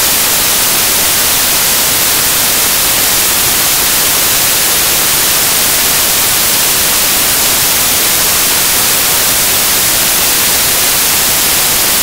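Loud, steady static hiss like white noise, even from low to high pitch, with no music or tones in it.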